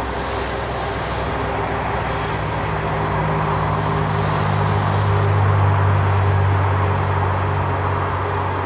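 Freight train passing, with a diesel locomotive's low engine drone swelling to its loudest about five to six seconds in, then easing, over the steady rumble of the train.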